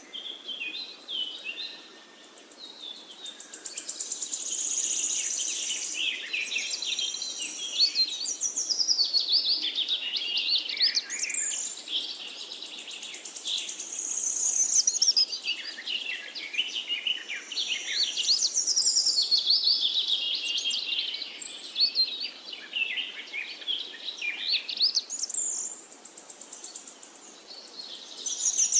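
Several birds chirping and singing at once: a dense chorus of quick, high, overlapping calls that swells and fades in waves every few seconds.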